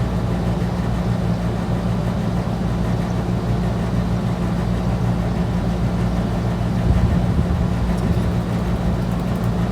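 Steady low mechanical hum, running unchanged, with a slight swell about seven seconds in.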